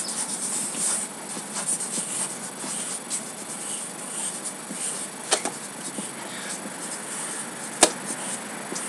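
Quiet scratching and rustling of pens on paper as several people write, with scattered small ticks and one sharp click near the end.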